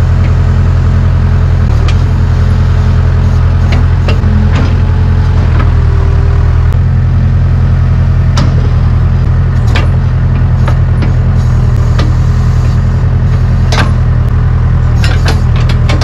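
Case 580K backhoe loader's four-cylinder diesel engine running steadily while the backhoe arm and bucket work, with scattered sharp clanks and knocks from the machine, several in quick succession near the end.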